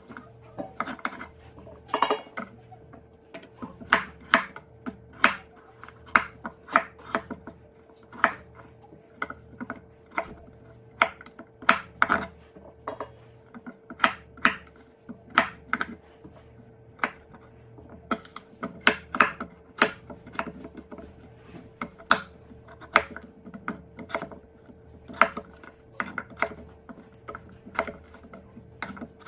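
Chef's knife chopping russet potatoes into cubes on a wooden cutting board: irregular knocks of the blade striking the board, about one or two a second, over a faint steady hum.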